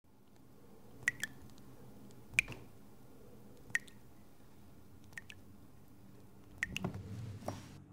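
Water drops falling one at a time at uneven intervals, each a sharp plink, over a faint low hum in a small, reverberant room; a brief rush of noise comes near the end.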